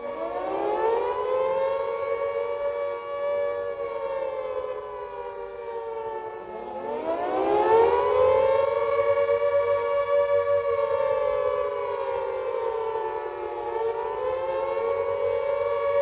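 Carter air raid siren sounding the rising-and-falling warning wail, two close tones together. The pitch climbs at the start, sags, climbs again about six and a half seconds in, and dips and recovers near the end.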